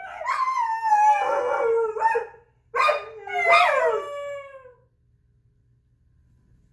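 A dog howling in two long, wavering howls. The first slides down in pitch, and the second rises and then falls. This is the distressed howling of a dog left home without its people.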